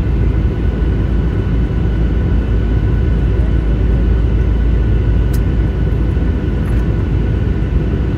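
Airliner cabin noise in flight: a loud, steady low rumble of engines and airflow, with faint steady whines above it. A faint click about five seconds in.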